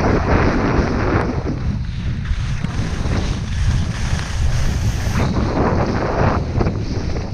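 Wind buffeting a helmet-mounted action camera's microphone during a fast downhill run on snow, a constant low rumble. Over it come uneven surges of hissing snow scraping under the rider's skis or board, strongest at the start and again about two thirds of the way in.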